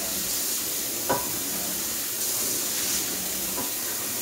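Food sizzling steadily in a hot frying pan on the stove, with a light click about a second in.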